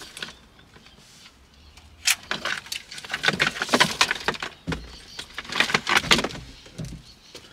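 Plastic wiring-harness connectors and cables being unplugged and pulled out from behind a car's dashboard: a run of small clicks, rattles and rustling that starts about two seconds in.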